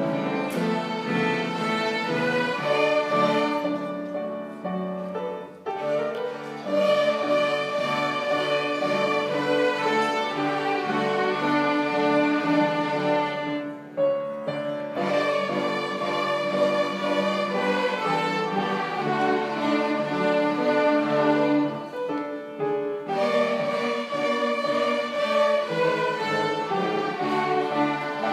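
Youth string orchestra playing: violins and cellos bowing a tune together in sustained notes, with three brief breaks between phrases.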